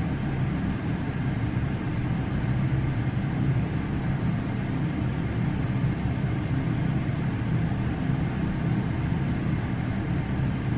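Steady low background hum and rumble, even throughout, with no distinct events.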